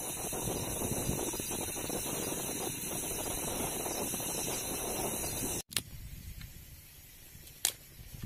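Green bamboo tube heating over a wood fire, hissing and sizzling as moisture boils and froths out of its open end, with the fire crackling. A little over halfway the sound cuts off abruptly to a quieter wood fire, with one sharp crack near the end.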